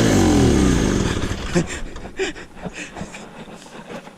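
Small boat motor winding down: its whine slides steadily down in pitch over about a second and a half and stops, followed by a few light knocks.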